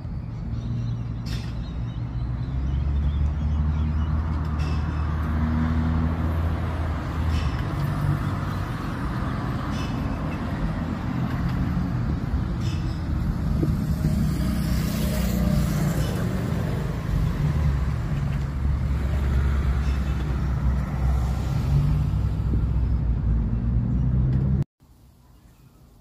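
Steady low rumble of a motor vehicle engine running close by, mixed with road traffic noise. It cuts off abruptly near the end.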